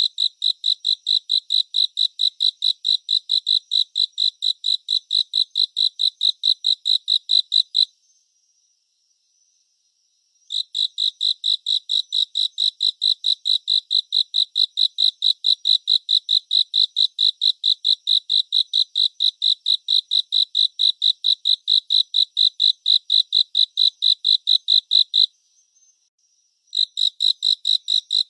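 A cricket chirping in an even, rapid pulse of about four chirps a second, stopping twice for a second or two (about 8 s in and about 25 s in) before starting again.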